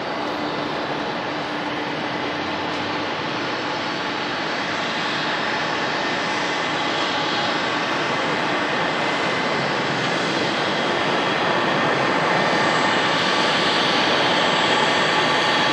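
Jet engines of a Boeing 777-200ER coming in to land, a steady roar with thin high whining tones, growing gradually louder as the airliner approaches.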